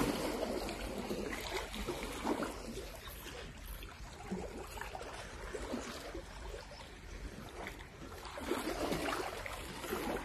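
Small sea waves lapping and washing against a rocky shoreline, rising and falling in swells.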